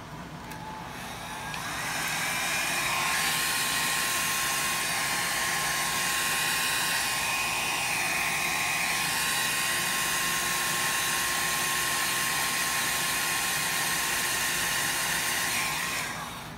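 Handheld electric dryer blowing air over wet indigo ink on synthetic paper to spread and dry it: switched on about two seconds in, running steadily with a thin motor whine over the rush of air, and switched off near the end.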